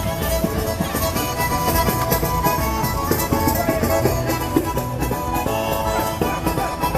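Traditional folk dance music playing loudly and without a break, a melody carried by held instrumental tones.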